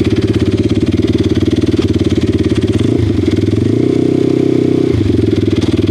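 X-Motos 150 pit bike's 150 cc single-cylinder four-stroke engine running steadily at idle. Its note shifts briefly between about three and five seconds in.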